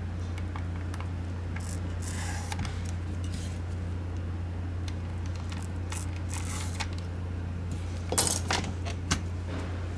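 Plastic shell of a Logitech G604 gaming mouse handled and pried at with gloved hands and a small tool: scattered short scraping and rubbing sounds, a louder plastic rattle about eight seconds in and a click just after. A steady low hum runs underneath.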